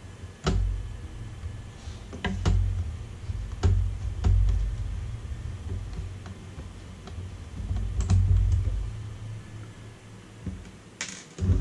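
Scattered sharp clicks and light knocks from handling and fitting the sheet-metal case and parts of a Black & Decker toaster oven, with dull low thumps as it is moved about, the loudest knock near the end.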